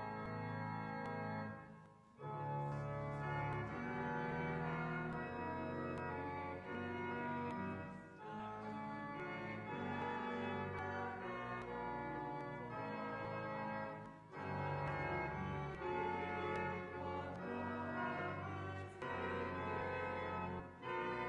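Church organ playing a hymn tune in sustained chords, with a short break between phrases about every six seconds.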